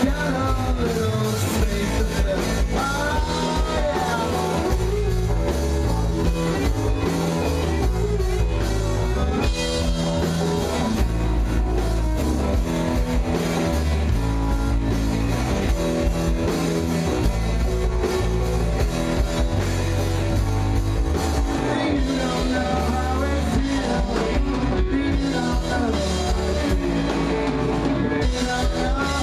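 Live rock band playing: electric guitars over a drum kit, a full, loud mix.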